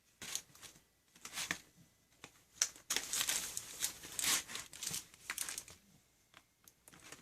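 Packaging crinkling and rustling in the hands as it is handled and opened, in irregular bursts that are densest in the middle.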